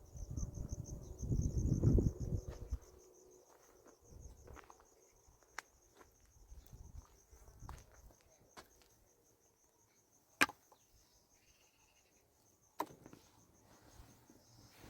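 Crickets chirping steadily in a fast pulsing trill. Low rumbling noise fills the first few seconds, and a few sharp knocks are heard, the loudest about ten seconds in.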